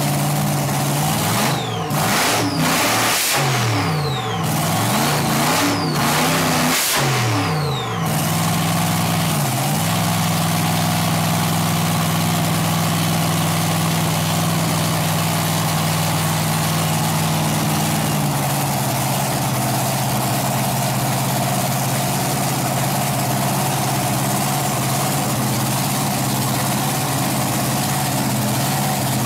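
Top Methanol dragster's freshly rebuilt methanol-burning V8 running: a quick series of sharp throttle blips in the first eight seconds, then a steady idle that settles a little lower about two-thirds of the way through.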